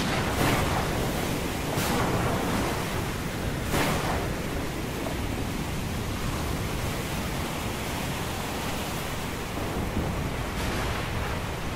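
Steady roar of wind and ocean surf, a stormy-sea soundscape, with a few brief louder swells in the first four seconds.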